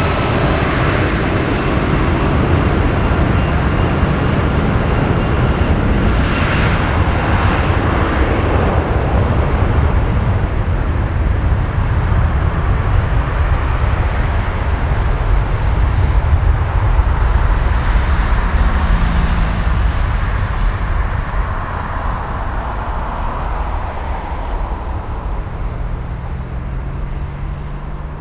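Jet engine noise from an AirAsia X Airbus A330-300 with Rolls-Royce Trent 700 engines as it taxis onto the runway: a loud, steady rumble and roar that swells about two-thirds of the way through, then eases as the aircraft moves away.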